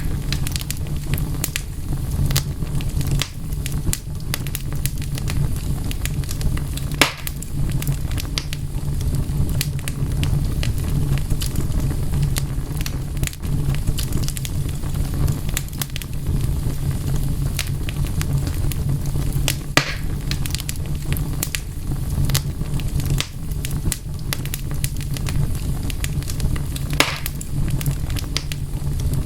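Wood fire crackling steadily, with many small pops and clicks over a low rumble of burning. Three louder snaps stand out, spread through the stretch.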